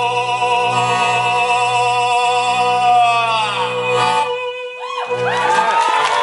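Live band music: a male voice holds a long wavering note over a steady accordion drone and violin, sliding down and stopping about four seconds in; then the violin plays fast swirling runs.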